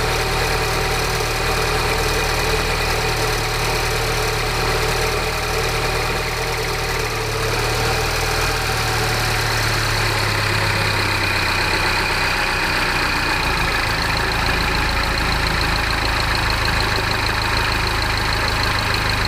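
Peugeot RCZ THP 200's 1.6-litre turbocharged four-cylinder idling after a cold start with a steady rattle. The rattle remains despite a new timing chain, tensioner, sprockets and guides, and its cause is not yet identified. The engine note drops slightly about twelve seconds in.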